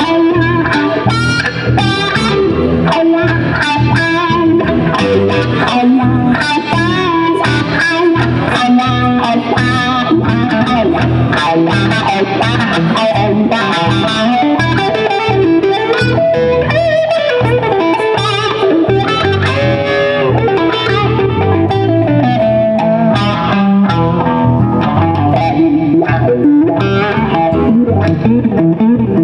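Live band playing loud: electric guitar and drum kit.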